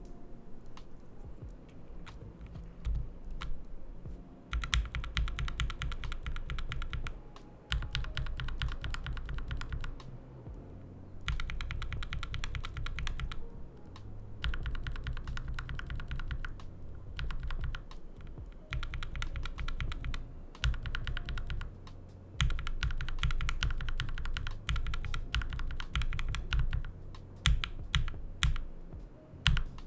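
Typing on a Keychron K2 mechanical keyboard with Gateron Milky Yellow Pro linear switches, foam-padded in the case and with pads stuffed inside the keycaps. The typing comes in fast runs of a few seconds with short pauses, with a few louder, separate keystrokes near the end.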